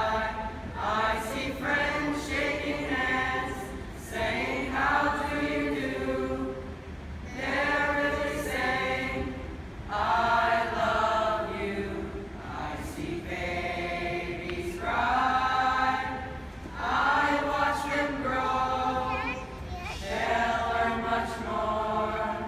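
Eighth-grade mixed-voice chorus of boys and girls singing, in sung phrases a few seconds long that swell and fall back.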